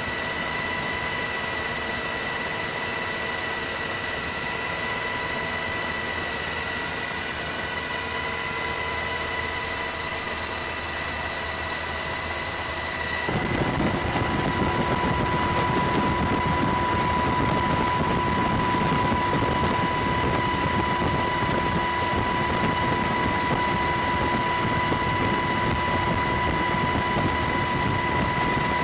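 Helicopter turbine and rotor noise, a steady drone with a high whine held on several steady tones. About 13 seconds in it changes abruptly and becomes noisier, with a stronger rumble under the whine.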